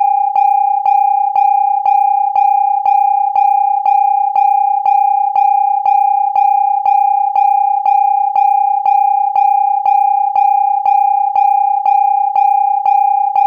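Electronic alarm warning tone: a steady high tone with a sharp pulse beating evenly about twice a second.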